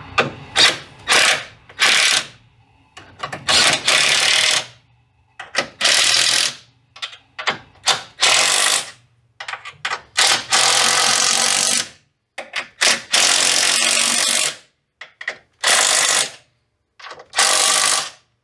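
Cordless impact wrench running the strut top-mount nuts down onto their studs in about fifteen short trigger pulls, most under a second, with a few longer runs of one to two seconds. The nuts are being worked in evenly around the mount until snug.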